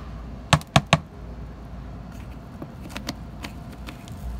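A yellow plastic hand tool stirring and scraping through moist compost in a green plastic worm-bin tray: three sharp clicks close together about half a second in, then fainter scattered clicks and scrapes, over a low steady city hum.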